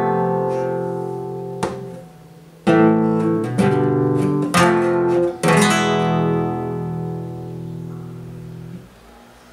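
Nylon-string flamenco guitar strumming the chords of a soleá. One chord rings at the start, a short sharp click comes about a second and a half in, then a quick run of chord strokes, and a last chord struck about five and a half seconds in rings and fades away.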